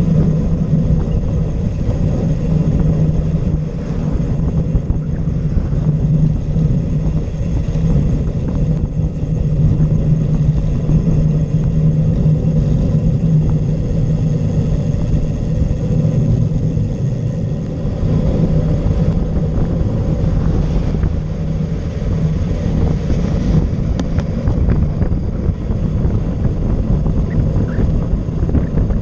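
Wind buffeting the microphone of a camera on a road bike riding at speed: a steady low rush.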